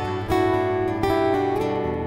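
Slow worship song: an acoustic guitar strums sustained chords, a new chord coming roughly every second.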